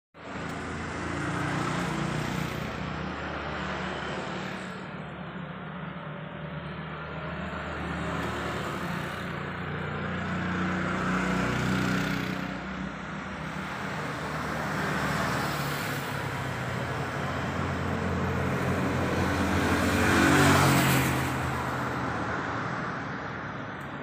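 Road traffic: vehicle engines running past in a steady rumble that swells and fades several times, loudest about twenty seconds in.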